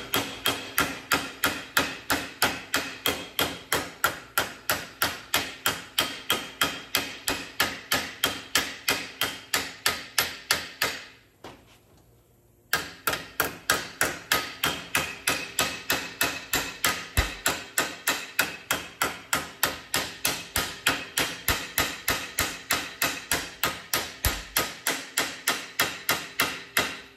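Steady hammer blows on sheet steel, about three a second, bending a flange over by hand, each blow ringing. They stop for about a second and a half near the middle, then carry on.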